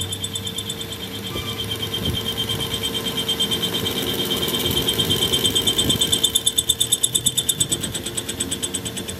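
Metal lathe turning a steel truck axle shaft while a tool bit cuts it, a steady high whine with a rapid pulsing of about six beats a second that grows louder through the middle and eases near the end.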